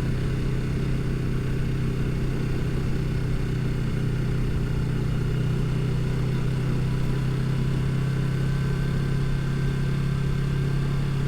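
Motorcycle engine running at a steady, unchanging speed.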